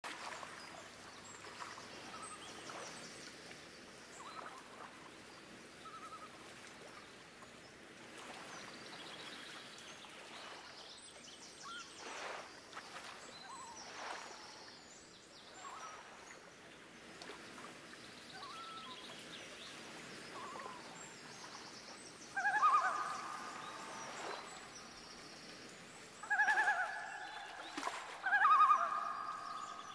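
Outdoor ambience with birds chirping here and there. Near the end, three loud pitched animal calls about a second long each stand out.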